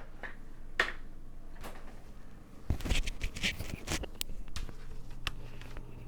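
Handling noise on a desk: scattered clicks and taps with a burst of rustling and knocking about three seconds in, over a steady low electrical hum.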